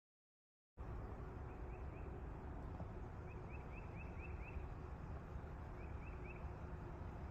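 Silent for about the first second, then wind rumbling on the microphone. Over it, a small bird gives three runs of short, high chirps in quick succession, the middle run the longest.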